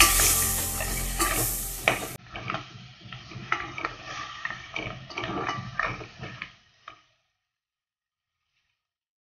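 Wooden spatula stirring blue crab pieces through spice masala in a pressure cooker, with clicks and scrapes of shell and wood against the pot. Sizzling is loud for the first two seconds, then only the stirring clicks go on until the sound cuts off about seven seconds in.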